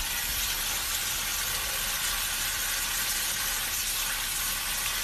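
Garden hose spray nozzle blasting water into a pickup truck's tailpipe: a steady, high hiss of spray with water splashing back off the pipe.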